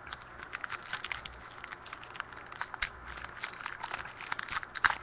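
A trading-card pack wrapper crinkling in the hands as it is opened, a quick run of small crackles and rustles.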